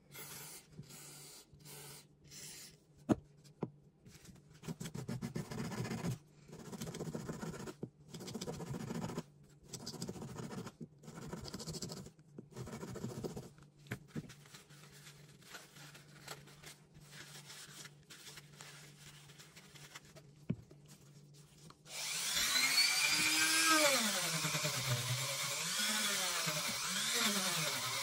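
Short bursts of scrubbing on a small metal Beretta pistol part, with a few sharp clicks. About six seconds from the end a handheld rotary tool starts and runs with a wire brush against the part, its whine dipping and recovering as it is pressed on.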